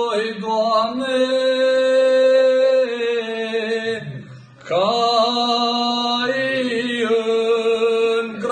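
A man singing unaccompanied in a slow, chant-like style, holding long notes. He breaks off briefly about four seconds in, then comes back in on a new held note.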